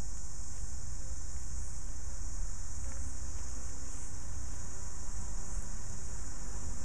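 Steady high-pitched insect chorus, with a low rumble of wind on the microphone.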